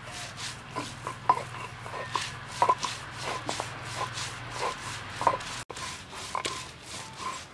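Stone roller (nora) rubbed back and forth over a flat stone grinding slab (shil), crushing dried red chillies into a wet paste: gritty stone-on-stone scraping with irregular knocks as the roller is rocked and pushed.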